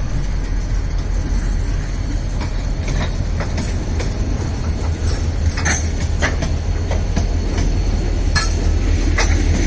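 Freight wagons, a loaded flatcar and gondola cars, rolling past close by: a steady low rumble of steel wheels on the rails, broken by sharp metallic clanks and squeaks about once a second.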